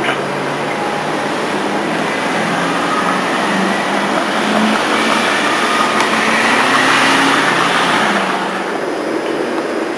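Electric interurban railway car running along the track, heard from on board: a steady rumble of wheels on rail that grows louder in the middle and eases off near the end.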